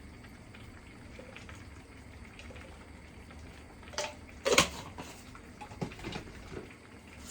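Beef curry simmering in a pot with a faint steady bubbling hiss. About four seconds in come a few sharp knocks of kitchen utensils; the loudest is a double knock just after the first.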